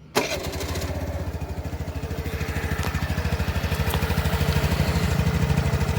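TVS Jupiter BS6 scooter's 110 cc single-cylinder fuel-injected engine catching at once just after the start, then idling evenly with a steady pulse. No fuel pump noise is heard over it: the fuel pump has been replaced.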